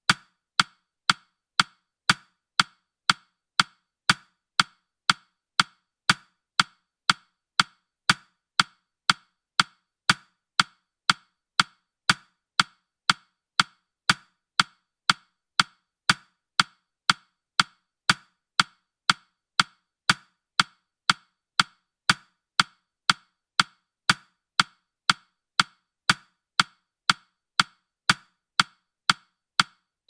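Clock ticking sound effect, a steady tick-tock of about two clicks a second, a crisp tick alternating with a duller tock.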